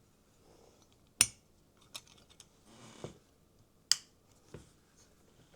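A few sharp clicks and taps of small parts being handled on a workbench, the loudest about a second in, with a brief soft rustle around three seconds.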